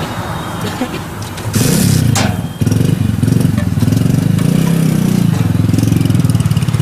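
Motorcycle engine running close by, suddenly much louder about a second and a half in, with a fast low pulsing, over steady road traffic noise.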